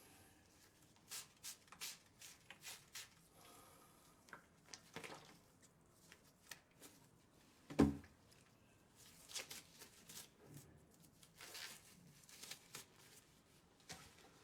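Faint scattered rustling and light clicks of objects being handled, with one louder thump a little past halfway.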